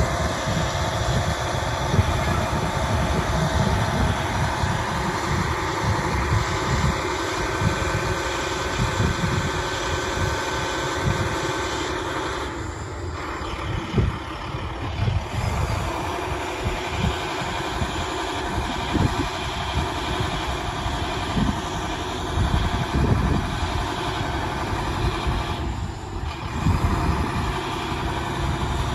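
Utility bucket truck's engine running steadily while driving the hydraulics that raise the aerial boom and bucket, with an uneven low rumble throughout.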